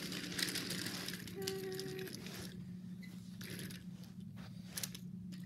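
Wooden toy train cars clattering and clicking along a wooden track as they are pushed by hand, with a short steady tone about a second and a half in. After that, only a few scattered clicks and rustles.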